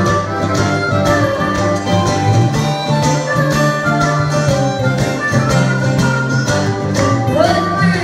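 Live acoustic country blues: two acoustic guitars strum a steady rhythm under a harmonica playing long held and bent notes. A singing voice comes in near the end.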